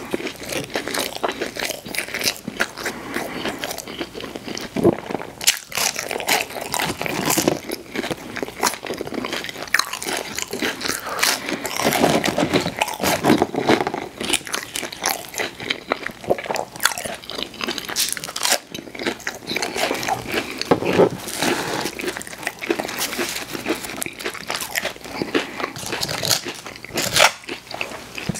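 Close-miked eating sounds: a person biting into and chewing crunchy fast food, with a continuous run of crackling crunches.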